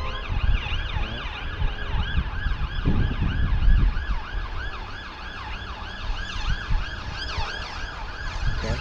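Emergency vehicle siren in fast yelp mode, its pitch rising and falling about three times a second. A low rumble swells about three seconds in.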